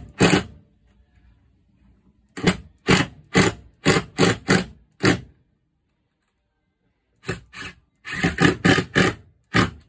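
Nails being driven into the timber frame of a garden gate: a run of sharp strikes in groups of two to seven, two or three a second, with short pauses between the groups.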